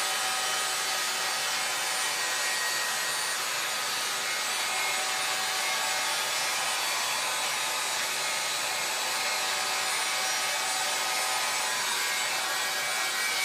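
Helen of Troy 1-1/2-inch hot-air styling brush running steadily, its fan blowing air while it is worked through a beard.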